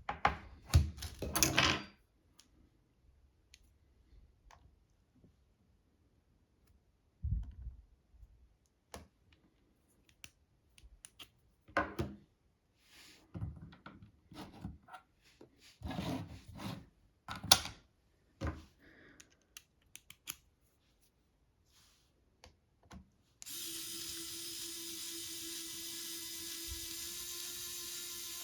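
Small tools clicking and scraping on a laptop's parts, then a small power tool's motor running at a steady pitch for the last five seconds.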